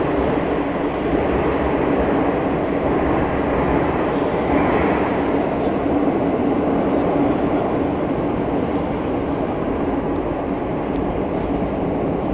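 Metro train rumbling steadily in the underground station, with a low steady hum running through it.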